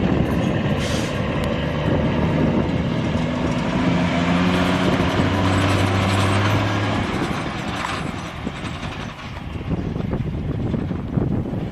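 Peterbilt 359 log truck's diesel engine running as it hauls a loaded log trailer, a steady low drone with a clear humming tone through the middle that eases off after about eight seconds.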